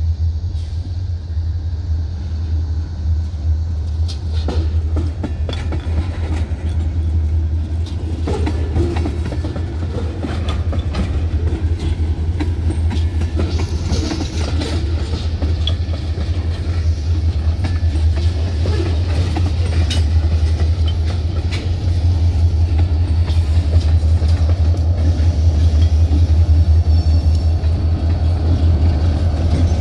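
Freight train of tank cars and hoppers rolling across a road grade crossing: steel wheels clicking over the rail joints over a steady low rumble. It grows louder in the last few seconds as Union Pacific diesel locomotives come through the crossing.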